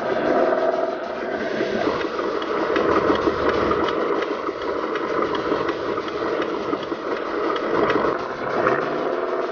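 A radio-controlled scale recovery truck running: a steady mechanical motor-and-gear sound with scattered small clicks.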